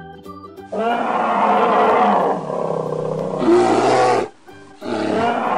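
Bear roar sound effect: one long roar of about three and a half seconds, a brief break, then a second roar beginning near the end. A short held musical chord comes just before the first roar.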